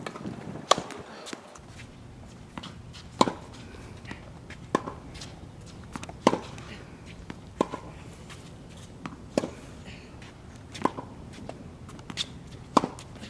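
Tennis balls struck with rackets in a hard-court rally: sharp pops roughly every second and a half, every other hit louder, the nearer player's strokes.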